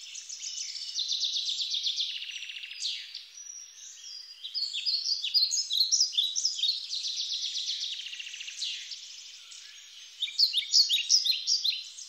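A chorus of birds chirping and singing: many overlapping, repeated high-pitched calls and fast trills, with no low sounds beneath them.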